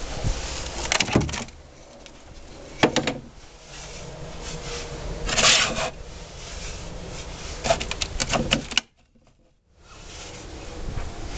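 Scattered knocks, clicks and rustling scrapes of someone moving about and handling objects, with a louder scuffing burst about halfway through. The sound drops out abruptly for under a second near the end.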